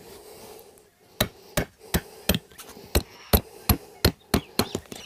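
Tent peg being hammered into the ground: a run of about a dozen sharp strikes, roughly three a second, starting about a second in.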